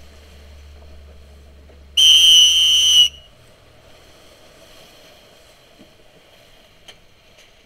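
A single loud whistle blast, a steady shrill tone about a second long, sounding about two seconds in: a coach's signal to the dinghies to start the next jibe.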